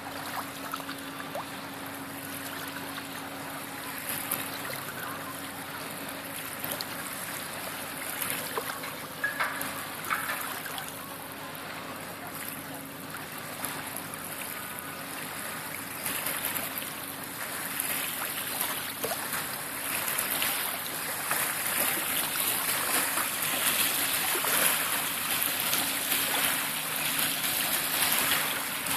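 Small river waves lapping and washing onto a sandy shore, getting louder over the second half, the wake of a passing cruise ship reaching the bank. A faint steady low hum runs underneath.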